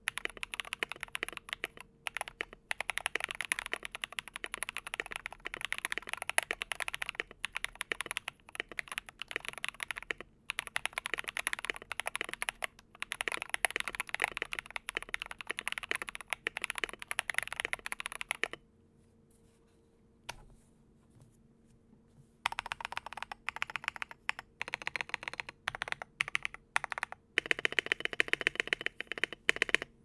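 Typing on a Keychron K4 mechanical keyboard with lubed Glorious Panda tactile switches, a steel plate, a foam-stuffed case and ASA-profile keycaps: a quick run of keystrokes. The typing stops for about four seconds around two-thirds of the way through, then resumes, denser near the end.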